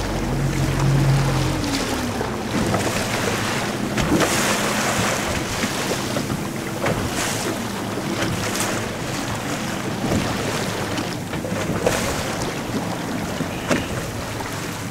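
Wind blowing on the microphone and waves splashing against the hull, with the steady low hum of the boat's engine underneath. The hum is strongest in the first couple of seconds.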